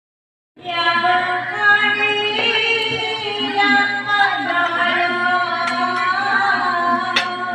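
Music with a woman singing, starting after a brief silence about half a second in.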